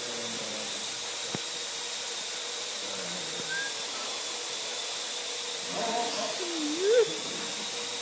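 Parrot AR.Drone quadcopter hovering, its four rotors giving a steady whirring hiss with a faint high whine. Near the end a person's voice briefly cries out over it, the pitch dipping and then rising.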